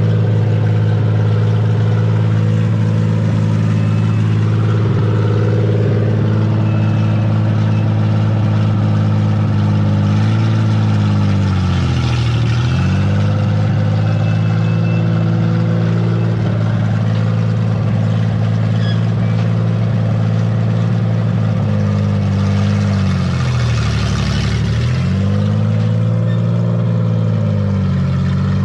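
Vehicle engine running with a steady drone. Twice, about ten and twenty-two seconds in, its pitch sinks and climbs back over a couple of seconds, as engine speed drops and picks up again.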